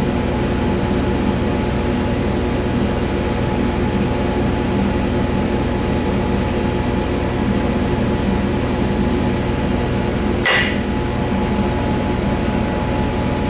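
AC TIG welding arc on aluminium, buzzing steadily. About ten and a half seconds in there is a single sharp metallic clink that rings briefly.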